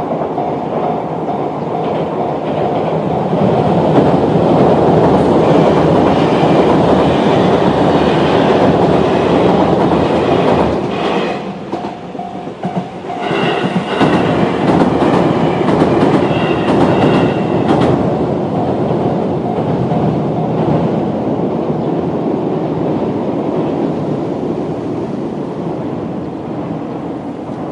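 Electric train passing over a level crossing at speed, wheels clattering over the rail joints, while the crossing's electronic warning bell rings. It grows loud a few seconds in, dips briefly near the middle, is loud again with some high squealing tones, and then fades.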